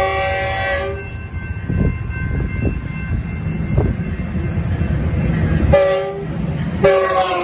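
Metrolink F125 locomotive's horn sounding for the grade crossing as the train approaches: a blast ending about a second in, a short blast near six seconds, and another starting just before the end, over the steady low rumble of the oncoming train.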